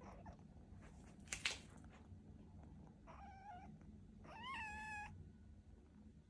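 Kitten meowing twice just after waking, short high calls a little past the middle, the second rising and then held. A brief rustle about a second and a half in is the loudest moment.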